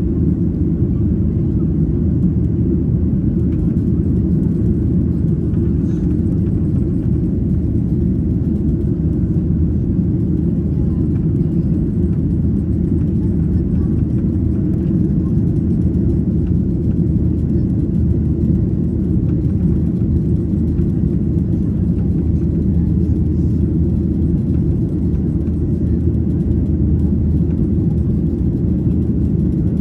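Steady low rumble of jet engine and airflow noise heard inside an airliner's passenger cabin while in flight after takeoff.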